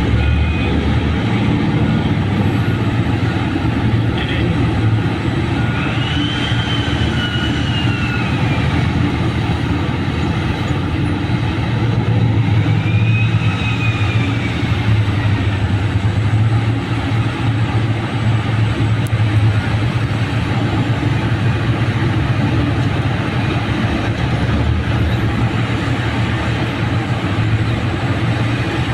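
Heavy diesel mining machinery running under load with a steady, loud low drone. Twice a high whine rises and then falls away, once at about six seconds in and again at about twelve.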